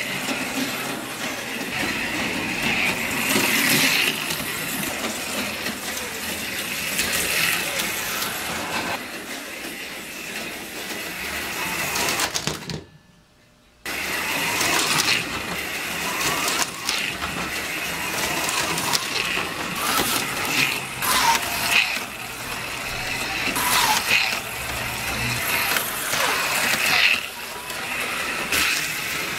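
HO-scale slot cars running on plastic track: small electric motors whining as they speed up and ease off, with the rattle of the cars' pickups and tyres in the slot. The sound breaks off for about a second near the middle.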